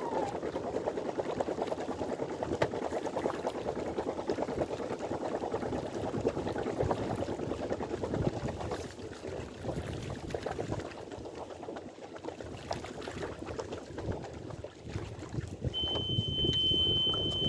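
Water rushing and splashing against the hull of a sailboat under way. Near the end a steady high-pitched tone starts and holds.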